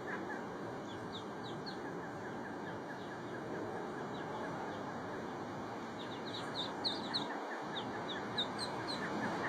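Ducklings peeping: short, high, falling peeps, a few about a second in and a quicker run of them from about six seconds in, over a steady background hiss.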